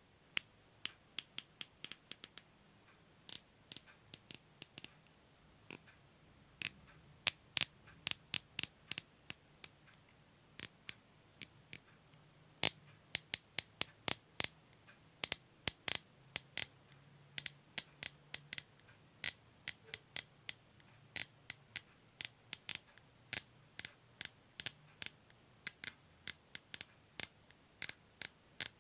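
Plastic cable tie being zipped through its ratchet head: short runs of sharp clicks, several a second, with brief pauses between.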